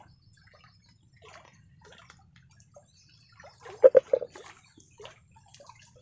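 Water sloshing and dripping at the water's edge, with a quick run of three or four loud, short splashing slaps about four seconds in.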